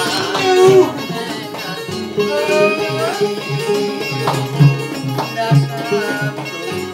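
Keroncong ensemble playing live: guitars and small ukulele-like lutes (cak and cuk) strumming the even keroncong chords over a steady plucked bass pulse, with a sliding melody line above.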